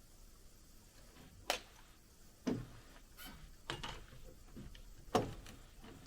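About five sharp knocks at irregular intervals over a faint background hiss, the second and last the loudest.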